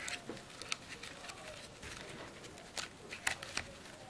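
Handling noise as a nylon strap is threaded through the mounting slots of a Moultrie A300i trail camera's plastic housing: quiet rustling of the webbing with a few light clicks and scrapes against the plastic.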